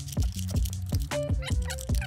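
Background music with a steady beat of deep drum hits under held notes.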